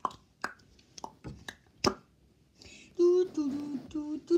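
A child's mouth clicks and pops, scattered and sharp. About three seconds in, the child's voice starts singing a wavering, held tune without words.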